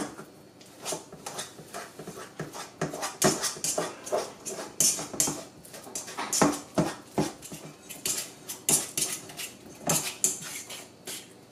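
Fork mashing ripe bananas in a stainless steel bowl: irregular wet squishing with scrapes and clinks of the fork against the steel.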